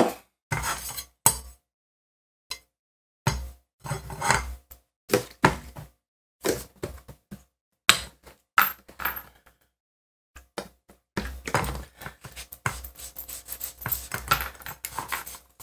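Scattered clinks and knocks as a rusty steel circular saw blade and a plastic bottle of isopropyl alcohol are handled on a cutting mat, then a stretch of rubbing and scrubbing with small clicks over the last few seconds as the blade is wiped down with alcohol-soaked cotton to clean it.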